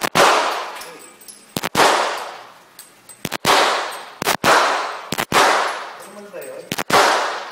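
Gunshots fired at an indoor shooting range: six single shots, about one to one and a half seconds apart. Each shot rings out in a long echo off the range's walls.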